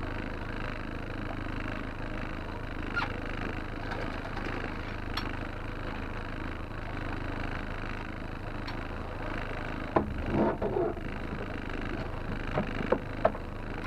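Honda four-stroke outboard motor running steadily at trolling speed, with water washing past the hull. About ten seconds in there is a brief louder, wavering burst, followed by a few sharp knocks near the end.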